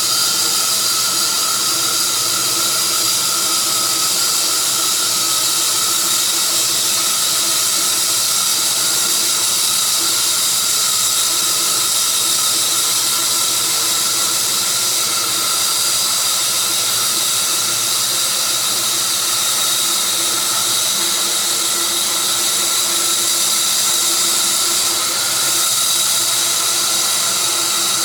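Sawmill running steadily through a tree of heaven log, a high whining cut over a broad hiss.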